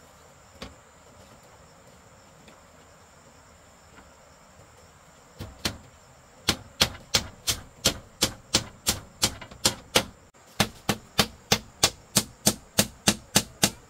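A hand tool striking bamboo in quick, even blows, about three a second. The blows begin a few seconds in and pause briefly near the middle before going on, with one lone knock earlier.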